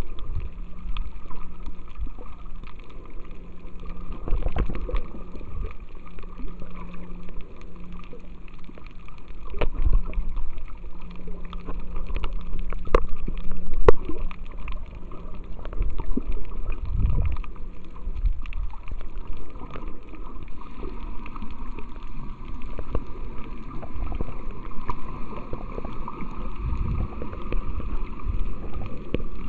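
Muffled water noise picked up by a camera held underwater: sloshing and gurgling, with scattered sharp clicks, the loudest about 14 seconds in. A faint steady low hum runs through the first half and then fades.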